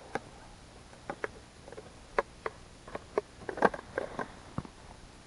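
Irregular light clicks and taps, a dozen or so, from the small plastic spool of a winter pike tip-up being handled and turned as its line is set over the ice hole.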